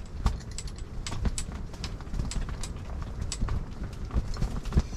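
Wind buffeting an ice-fishing shelter as a low, uneven rumble, with many irregular light clicks and taps throughout.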